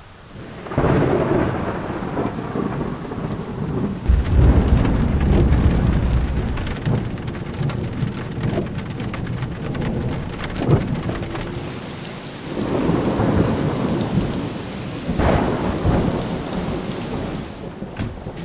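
Rain falling steadily with several low rolls of thunder, the longest and loudest beginning about four seconds in.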